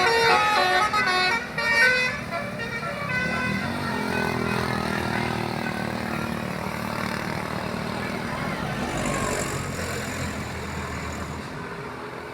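A tour bus's telolet musical horn playing a quick run of stepped notes for about the first two seconds, then the bus's engine running with a low rumble that slowly fades.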